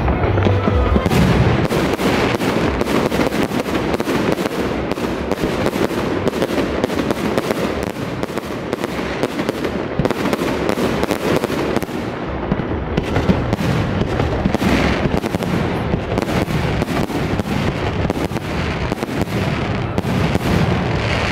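Fireworks display: aerial shells bursting with many bangs and crackles in quick succession, thinning briefly about two-thirds of the way through.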